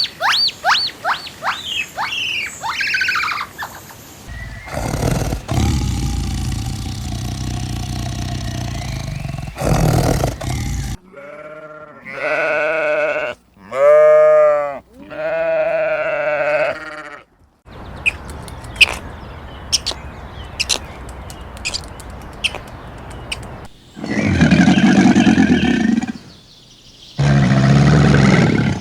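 A run of separate animal calls. The clearest are three long, wavering bleats in the middle, typical of a goat. Before them come quick rising squeaks, and after them a spell of clicks and two loud, rough calls near the end.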